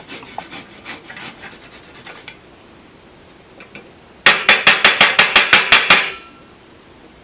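Garlic being grated: a few soft scraping strokes, a lull, then about a second in from the middle a loud, quick run of about a dozen even strokes, roughly six a second.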